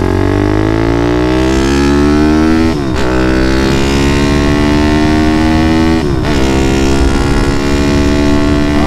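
A Grom-clone minibike's small single-cylinder engine accelerating while riding. Its pitch climbs and is cut by two upshifts about three seconds apart, where the note drops before rising again. After the second shift it climbs more gently.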